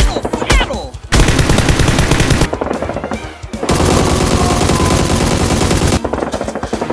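Bursts of rapid automatic gunfire, a dubbed-in sound effect rather than the blasters' own noise, with a short lull about three seconds in.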